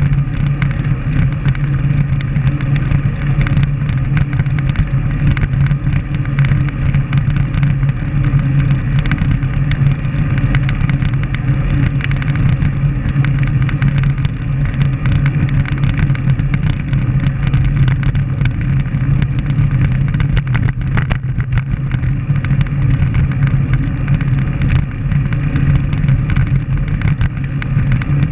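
Steady wind rush on the microphone of a camera mounted on a moving road bike, with tyre and road rumble underneath, unchanging throughout.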